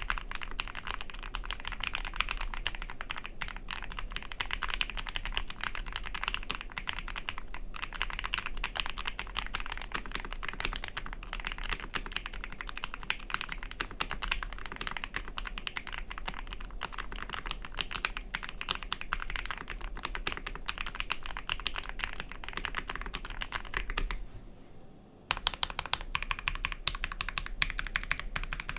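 Fast typing on a custom Ikki68 Aurora mechanical keyboard with Gateron CJ linear switches: a dense, continuous run of key clacks. It breaks off about 24 seconds in and resumes a second later, louder.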